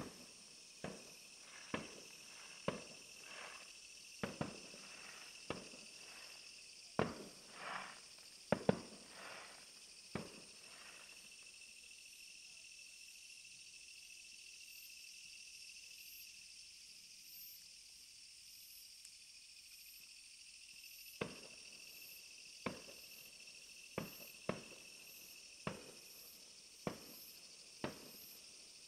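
Fireworks bursting in a series of sharp bangs, about one a second, some trailing a short crackle. The bangs stop for about ten seconds partway through and then resume.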